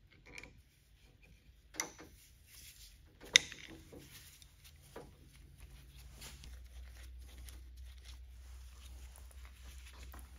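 Open-end wrenches clicking and clinking against a brass hydraulic hose fitting on a car lift's power unit as it is worked loose. There are a few scattered metallic clicks, the sharpest one a bit over three seconds in, over a faint low hum.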